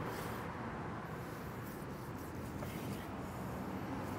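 A long slicing knife drawn quietly through grilled flank steak on a wooden cutting board, cutting it across the grain, over a steady background hum.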